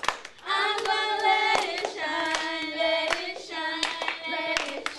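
A group of children singing a song together, with a few sharp handclaps among the sung notes.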